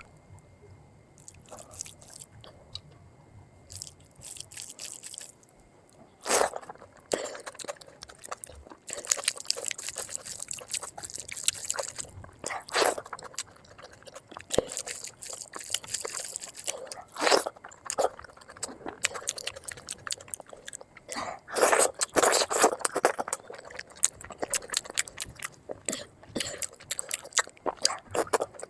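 Close-miked eating sounds played at double speed: crunchy bites and chewing with wet mouth clicks. Several louder crunches stand out a few seconds apart among continuous smaller crackles.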